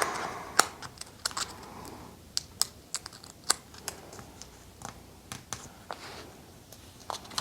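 Scattered light taps and clicks, irregularly spaced, from a traveler's notebook and its plastic folder insert being handled.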